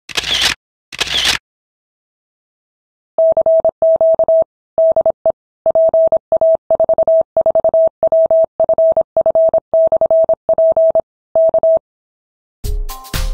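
Morse code: a single steady beep keyed on and off in dots and dashes for about eight seconds. It is preceded by two short bursts of noise, and electronic music begins near the end.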